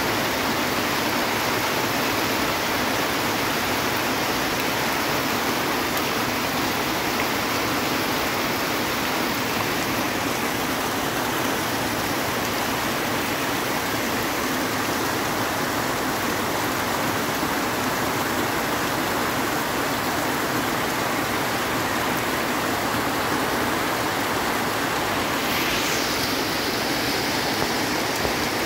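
Heavy tropical rain pouring steadily, with muddy runoff water rushing across the ground: an even, unbroken rush.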